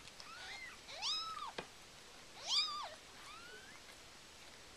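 Newborn Siamese kittens mewing: about four short, high-pitched cries that rise and fall, the two loudest about a second and two and a half seconds in, with a single sharp click in between.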